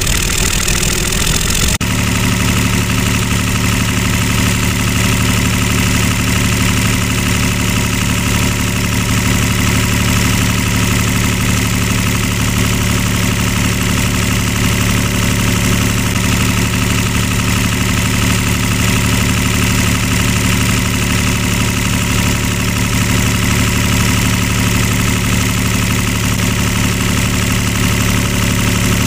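Miniature model tractor running steadily, driving a toy flour mill through its PTO shaft and belt pulley while wheat is ground. It makes a constant engine-like hum that settles in about two seconds in.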